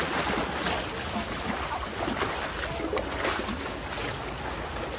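Sea waves washing along a rocky shore: a steady rush of water noise, with a few faint knocks.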